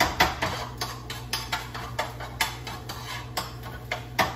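A metal utensil clinking and scraping against kitchenware in quick, irregular strikes, about four a second, as in stirring or scrambling in a pan or bowl.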